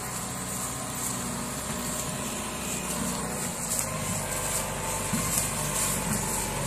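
Kubota 5501 tractor's four-cylinder diesel engine running steadily under load as it hauls a trailer heavily loaded with sugarcane.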